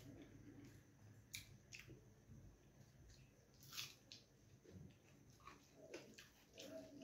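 Faint eating sounds: rice and dal squished by hand and chewed, with scattered small clicks and mouth smacks, the clearest about four seconds in.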